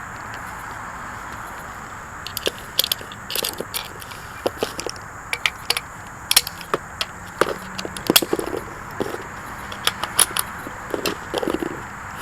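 Irregular clicks, snaps and light knocks of parts being fitted back together by hand as a Wolverine Airsoft HPA rifle is reassembled, starting about two seconds in, over a steady hiss.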